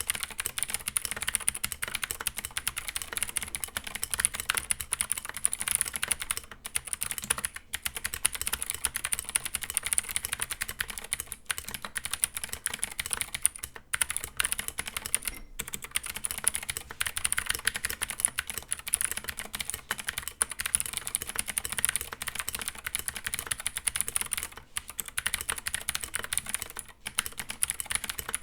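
Fast, continuous typing on a Keychron K8 mechanical keyboard fitted with its stock Gateron Blue switches, clicky keystrokes in a rapid stream with a few brief pauses.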